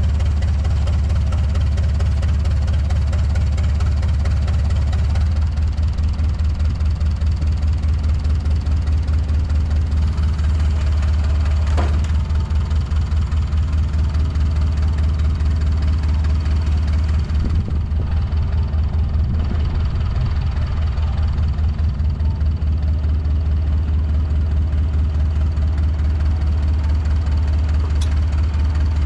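Skid steer engine running steadily, its note changing about five seconds in and again past the middle. A single sharp knock comes a little before the middle.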